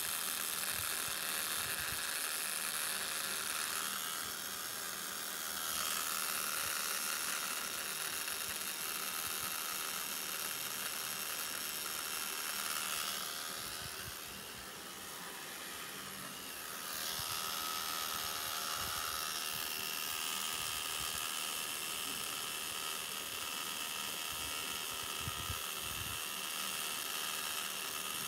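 Tattoo machine buzzing steadily as its needle lines the outline of a band tattoo on skin. The buzz drops quieter for a few seconds about halfway through, then comes back.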